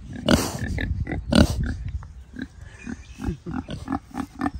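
Pig grunting at close range: two loud snorts in the first second and a half, then a run of short grunts, about three or four a second.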